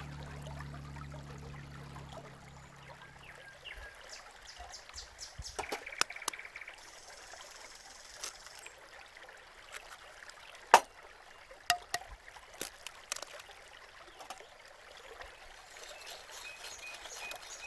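Water trickling, with scattered light clicks and knocks and one sharper knock about eleven seconds in.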